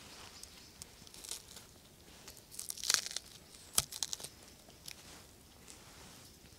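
Crackling and rustling as a birch pole is handled and worked into place between two trees, with a burst of crackling around three seconds in and one sharp crack just before four seconds.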